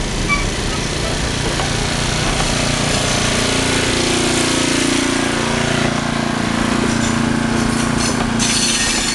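Steel passenger coaches rolling past at close range: a steady noise of wheels on rail, with a low droning tone coming in about three seconds in.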